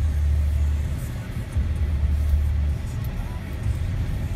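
Low rumble of a car on the move, heard from inside its cabin; the deep hum swells and drops in stretches of a second or so.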